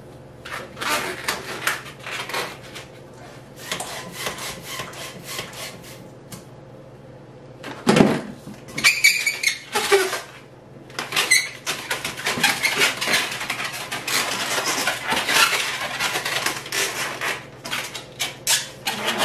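Long inflated latex modelling balloon squeaking and rubbing as it is handled and bent into shape, in uneven spells of squeaky rubbing, with a sharp knock about eight seconds in.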